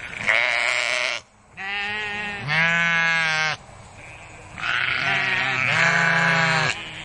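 A single sheep bleating: three long bleats with short pauses between them, the first about a second long and the next two about two seconds each.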